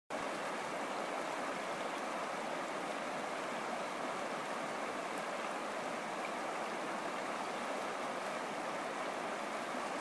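Shallow, fast stream running steadily over rocks and riffles, an even rushing of water.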